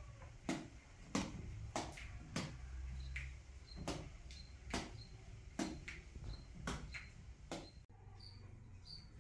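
Knife chopping on a cutting board, a slow, fairly even run of sharp knocks about once every two-thirds of a second. Short high chirps join in, repeating about twice a second from about three seconds in.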